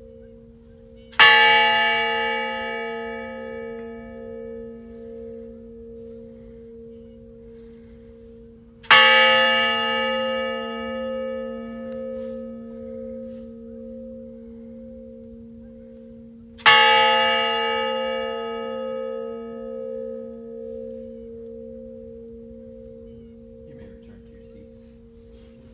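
Large brass bell on a stand, tolled three times about eight seconds apart. Each stroke rings on and fades slowly, leaving a wavering hum.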